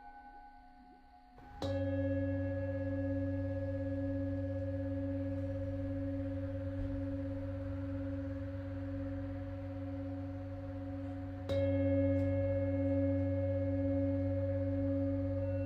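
Singing bowl struck twice, once about a second and a half in and again about two-thirds of the way through. Each strike rings on as a long, deep hum that wavers slowly in loudness.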